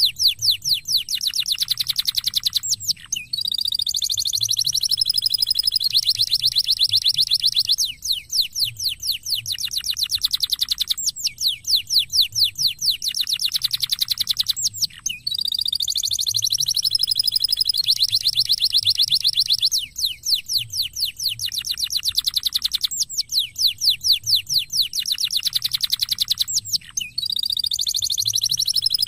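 Canary singing: fast, rapid trills alternating with higher, held warbling notes, in phrases that repeat about every four seconds.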